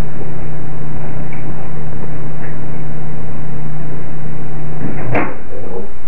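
Microwave oven running with a steady hum, heard through a security camera's microphone with heavy hiss. About five seconds in comes one sharp click, the door being opened, and the hum stops.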